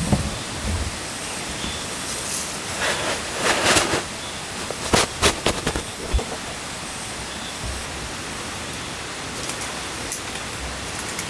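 Camping gear being handled and packed away: fabric rustling and a few sharp clicks and knocks from a folding camp chair's metal frame, over a steady background hiss.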